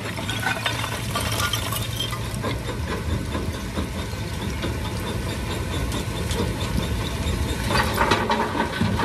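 Volvo EC145EL excavator and the tractor driving a Herbst jaw crusher running steadily, with a continual rattle of stone in the crusher. Near the end a louder clatter as a bucketful of stone is tipped into the crusher's hopper.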